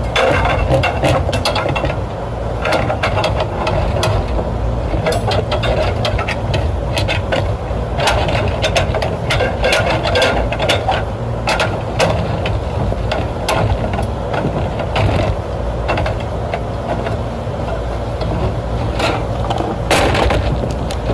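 Scattered metallic clicks, clanks and rattles of hand work as a condenser fan motor is fitted and fastened into a rooftop unit's fan bracket, over a steady low rumble.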